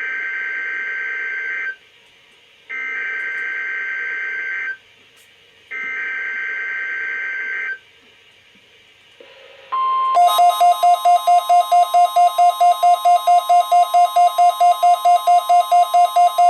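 NOAA Weather Radio Required Weekly Test: three bursts of SAME digital header data, each about two seconds long with a second's gap between them, a raspy two-tone screech. About ten seconds in, the steady warning alarm tone begins. Almost at once a Midland WR120 weather radio's alert sounds over it, a rapid beeping about five times a second.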